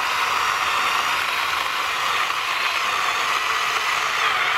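Mini chainsaw running steadily as it cuts through a branch: an even, high buzzing whine of the chain in the wood.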